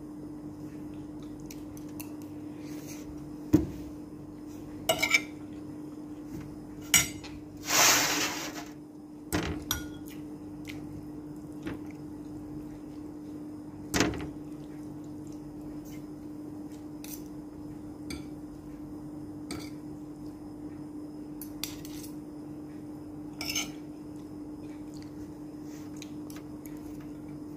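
Metal spoon and fork clinking and scraping against a ceramic plate during eating, in scattered separate strikes, with one longer scrape about eight seconds in. A steady low hum runs underneath.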